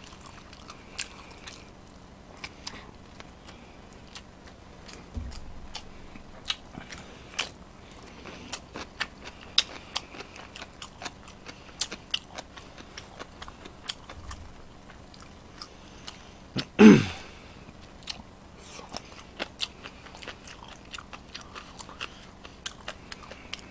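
A man chewing and smacking his lips as he eats spicy braised chicken stew, with many small wet mouth clicks. A short voiced sound with a falling pitch comes about two-thirds of the way through.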